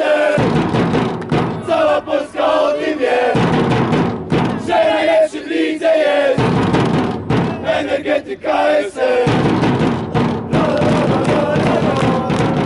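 A small group of football supporters chanting in unison with hand clapping. The chanted line repeats about every three seconds.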